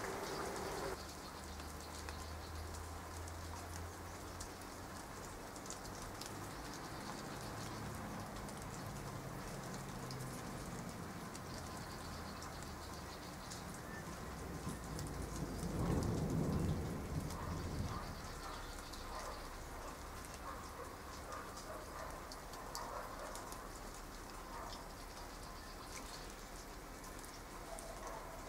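Steady rain falling on leaves and water, an even hiss dotted with many small drop ticks. About halfway through, a low rumble swells for two or three seconds and fades, the loudest moment.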